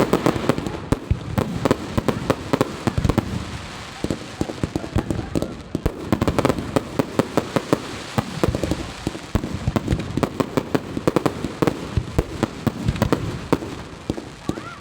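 Fireworks display: a dense, unbroken run of sharp bangs and crackling bursts, several a second, over a continuous rumble.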